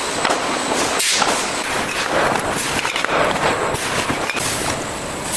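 Fruit-processing factory machinery running: a steady, loud mechanical clatter and rush that surges irregularly about once a second.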